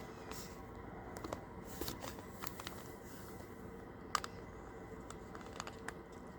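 Faint, scattered light clicks and rustles of small objects being handled, the sharpest click about four seconds in, over a low steady room hiss.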